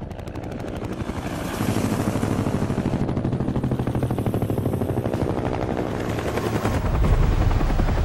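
Helicopter rotor blades chopping in a fast, even beat that grows louder over the first second or two, with a heavier low thump near the end.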